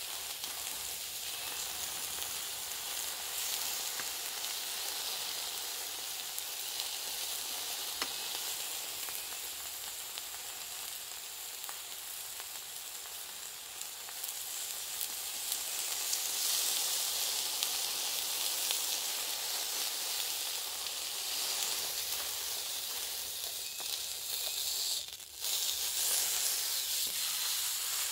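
Beef burger patty sizzling in the small frying pan of a Mini-Trangia spirit stove, a steady hiss that gets louder about halfway through. Near the end the sizzle briefly drops out and comes back louder as the patty is turned over onto its raw side.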